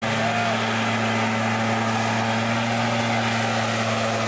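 Backpack leaf blower running steadily, its engine a constant drone, blowing dust and loose dirt off a trail.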